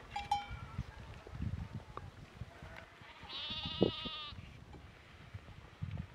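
A single bleat from a grazing farm animal, one call just over a second long with a wavering pitch, about three seconds in.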